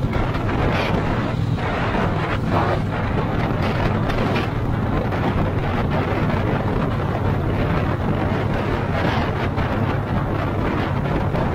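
Triumph Bonneville Speedmaster's parallel-twin engine running steadily while cruising at speed, with wind rushing over the microphone.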